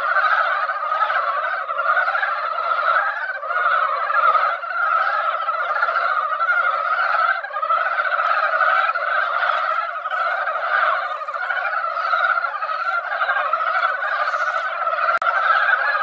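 A breeding chorus of many male Korean brown frogs calling at a spawning pond. Their overlapping calls run together into a steady, unbroken din.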